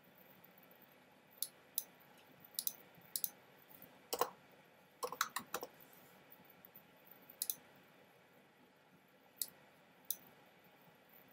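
Scattered sharp clicks on a quiet background, singly and in pairs, with a louder, duller run of several clicks between about four and six seconds in.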